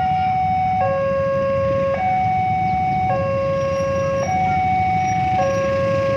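Railway level-crossing warning alarm sounding its two-tone electronic signal, a higher and a lower tone alternating about every second, to warn that a train is approaching. A steady low rumble of traffic runs underneath.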